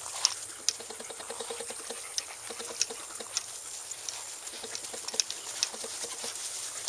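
Footsteps pattering through grass, with several sharp clicks among them.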